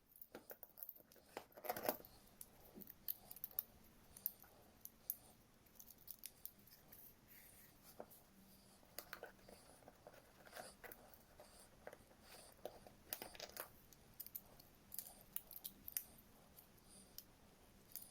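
Faint, irregular clicks, clinks and short scrapes of small metal engine parts and hand tools being handled while a scooter's piston and cylinder are put back together.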